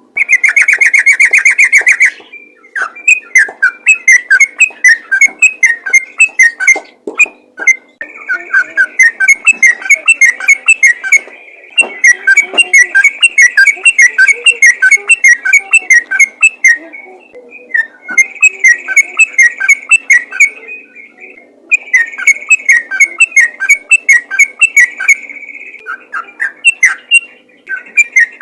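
Yellow-vented bulbul (trucukan) singing in fast, non-stop runs of bubbly repeated notes. Each run lasts several seconds before a short pause, and the first phrase is a dense, buzzy whistle.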